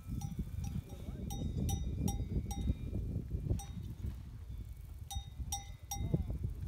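Cowbell on a grazing cow's collar clanging irregularly as the cow moves, in quick clusters of strikes, most of them in the first few seconds and again near the end. A steady low rumble runs underneath.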